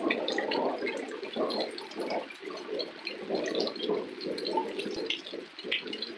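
Heavy rain pouring down in a thunderstorm: a dense rushing of water that surges unevenly.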